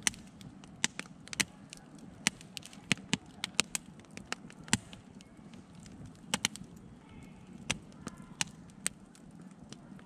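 Wood fire burning in a steel campfire ring: burning logs crackling and popping in irregular sharp snaps, one to three a second, over a steady low background.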